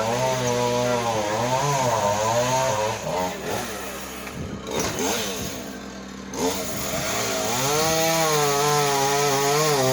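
Chainsaw running at high revs, its pitch wavering up and down as it works. About three seconds in it eases off and gets quieter, then revs back up near the seven-second mark and holds.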